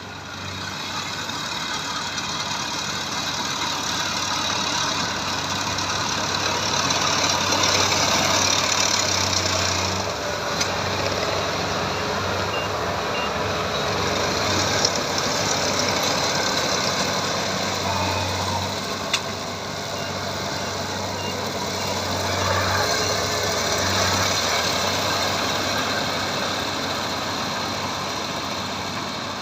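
Combine harvester running steadily while cutting rice paddy: a continuous engine-and-machinery din with a low hum, swelling a little and easing off near the end, with a couple of sharp clicks.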